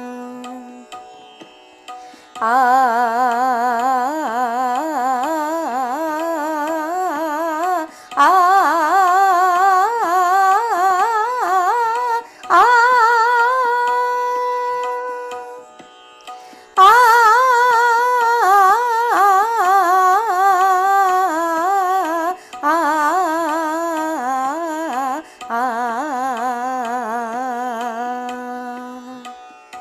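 Indian classical practice music: fast stepwise melodic runs of a Raag Bhairav alankar, the 2-3-1-2-3-2 pattern, in about six phrases with short breaks between them, one of them ending on a long held note about halfway.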